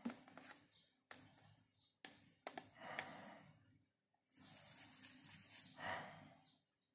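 Faint handling noise: a few light clicks and rustles in the first half, then a longer breathy rush of noise about four to six seconds in.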